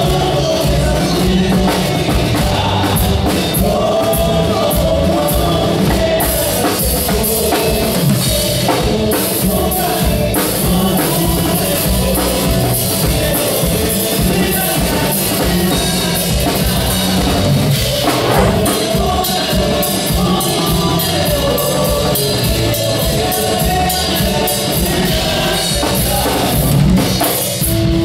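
Live Andean folk band playing: several men singing together over strummed acoustic guitars, electric guitar and a drum kit keeping a steady beat.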